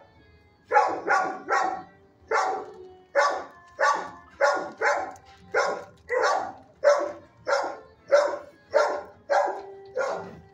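A dog in a neighbouring shelter kennel barking over and over, about two barks a second, starting about half a second in and keeping on without a break.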